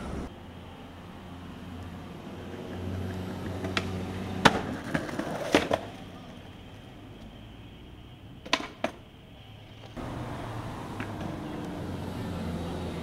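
Skateboard trick down a staircase: a light pop, then a loud smack of the board landing and a few clattering knocks within about a second. About three seconds later come two more sharp board knocks close together, over a steady low hum of street background.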